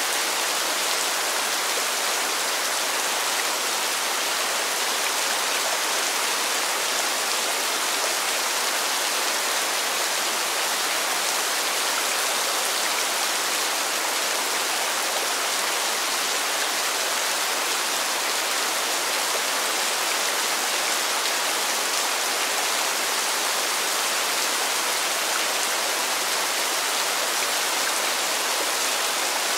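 Steady rain falling, an even hiss without breaks or changes.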